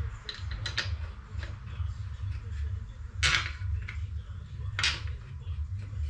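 Metal clinks and scrapes of hand work at a van's wheel hub during a wheel change, with two louder short rasps about three and five seconds in, over a steady low hum.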